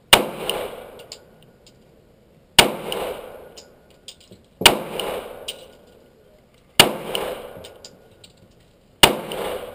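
Glock 19 Gen 4 9mm pistol firing five single shots, evenly spaced about two seconds apart, each followed by a short echo.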